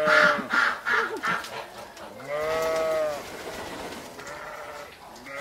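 A person imitating a chicken in a clucking, squawking voice: a run of short clucks at the start, one long drawn-out squawk about two seconds in, then a few fainter clucks near the end.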